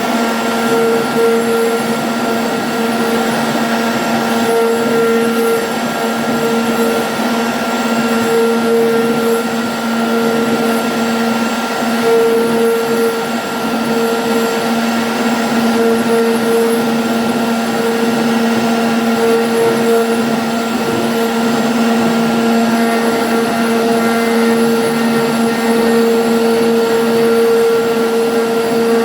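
CNC router spindle running steadily at high speed with a constant whine, its pitch swelling and easing slightly as the bit cuts through MDF.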